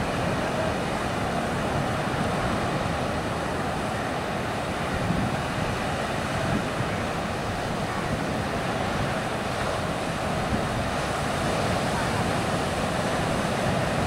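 Rough sea surf breaking and washing up the beach in a steady rush.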